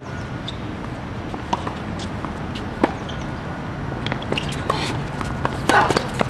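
Tennis rally on a hard court: sharp pops of the ball off racket strings and bounces on the court, with a few shoe scuffs, the loudest about 3 s in and just before 6 s. A steady low hum runs underneath.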